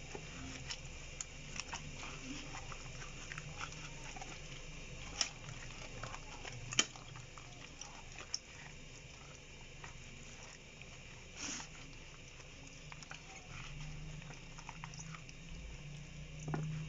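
Wet squelching and smacking of rubber-gloved hands rubbing a thick marinade into a whole raw chicken, with many small irregular clicks over a faint low hum.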